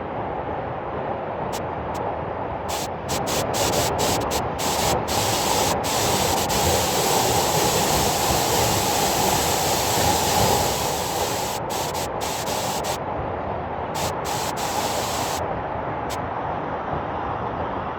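Waterfall rushing in a steady roar of falling water, with a brighter hiss of spray that swells louder for much of the middle and then fades back.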